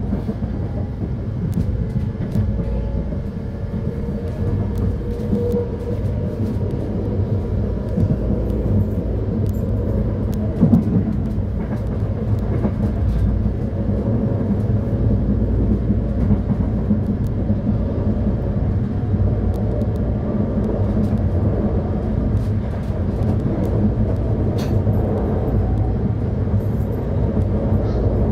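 Electric commuter train running on the rails, a steady rumble with scattered small clicks. A faint whine rises slightly in pitch over the first few seconds, and there is one short louder knock about eleven seconds in.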